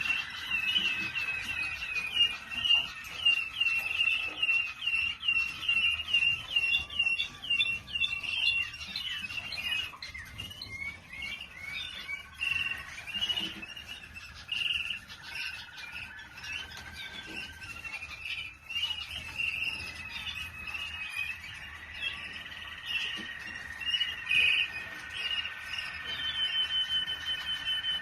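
Waterslager canary singing: a run of quick repeated chirping notes for about the first nine seconds, then varied rolling phrases and long held whistled tones, with a fast trill near the end.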